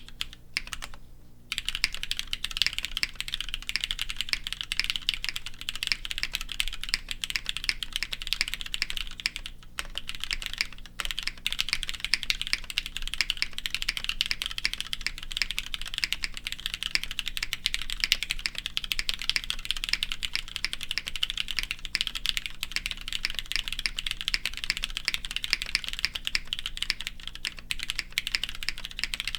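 Frog Mini mechanical keyboard being typed on quickly and continuously, a dense stream of key clicks. It starts about a second and a half in, with a short lull around ten seconds.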